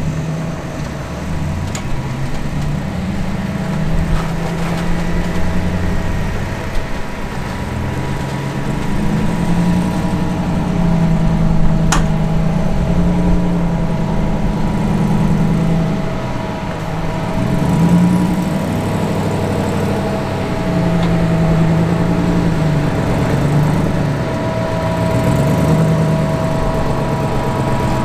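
Off-road Jeep Wrangler engine running at low speed, its revs rising and falling again and again, with a steady thin whine underneath. A single sharp click about twelve seconds in.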